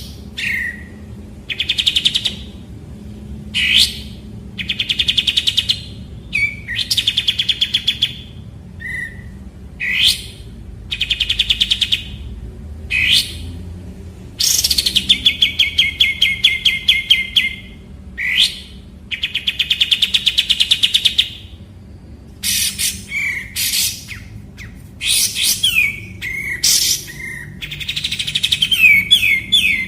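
Kapas tembak songbird calling: loud, fast rattling trills of a second or two, repeated again and again, with short sharp rising chips between them. A faint low hum runs underneath.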